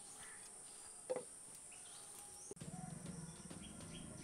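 Faint rural background: a steady high insect chorus with scattered short bird chirps. A brief louder sound comes about a second in, and a low pulsing hum joins about halfway through.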